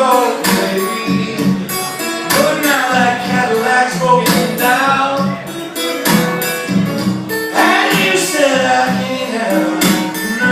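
Live country-blues song: a man singing over a rhythmically strummed acoustic guitar.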